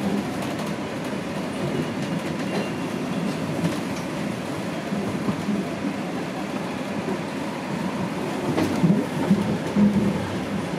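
Steady rumble of a TTC Line 1 subway train heard from inside the car, with a few louder wheel knocks near the end.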